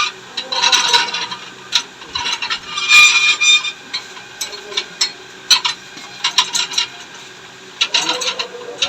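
Metal scraping and rasping in short bursts, then a run of sharp clicks and knocks, as the piston rod is worked out of a motorcycle mono-shock absorber.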